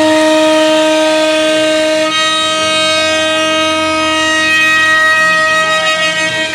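CNC wood router running: a steady, high whine from the spindle, with fainter tones gliding up and down in pitch as the machine moves through the cut. The whine changes about two seconds in, when higher overtones come in.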